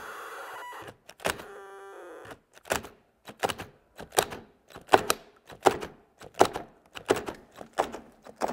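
A DeWalt and a compact Milwaukee cordless drill, locked chuck to chuck and driven against each other, run with a steady motor hum. About two and a half seconds in, this gives way to a string of sharp clunks, about two a second, as the stalled drills keep cutting out and are triggered again past their cutoff.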